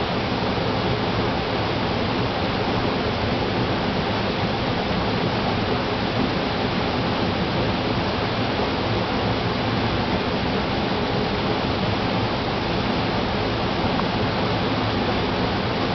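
Stream water rushing steadily, an even unbroken noise.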